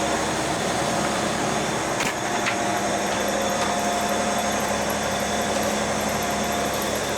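Boat engine running steadily, a constant droning hum with a short knock about two seconds in.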